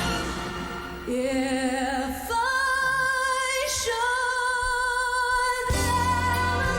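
A woman singing a ballad live, stepping up in pitch to a long held note with vibrato over light accompaniment. The full band comes in underneath near the end.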